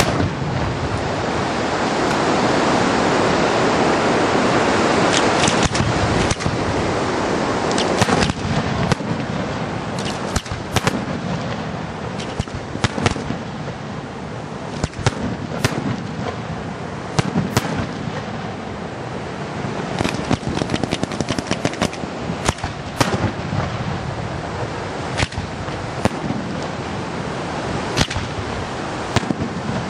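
Fireworks display: many sharp bangs of bursting aerial shells over a steady rushing noise. The noise is densest in the first few seconds, and the bangs come irregularly throughout.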